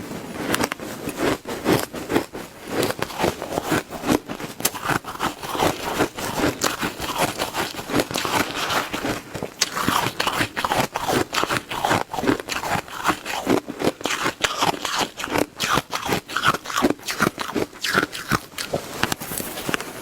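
Shaved ice being bitten and chewed: a dense run of crunches and crackles, several a second, without a break.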